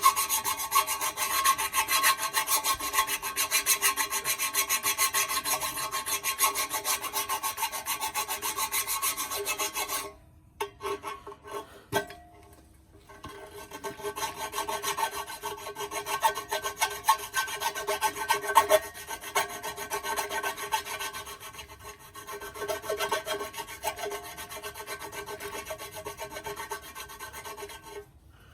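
Rapid, continuous rasping of a tool scraping on metal. It breaks off about ten seconds in and starts again a few seconds later, a little quieter.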